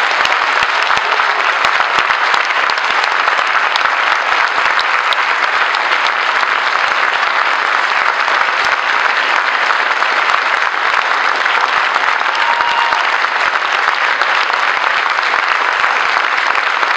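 Audience applauding steadily: many hands clapping at once in a dense, even clatter that holds at the same level throughout.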